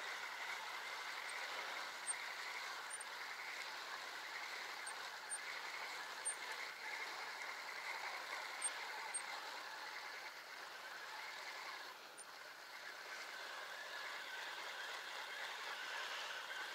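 Steady outdoor background noise, a fluttering hiss with a few faint, tiny high ticks scattered through it.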